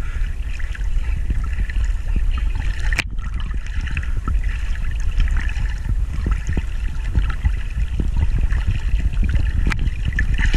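Lake water lapping and splashing close against the microphone as a swimmer moves through it, with a heavy low rumble and small crackles, and two sharp clicks, about three seconds in and near the end.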